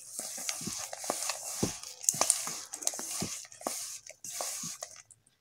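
Hand mixing and rubbing a crumbly mix of desiccated coconut, crushed petha and crushed almonds in a stainless steel bowl: repeated rustling swishes, about two a second, with small clicks of fingers against the steel, stopping shortly before the end.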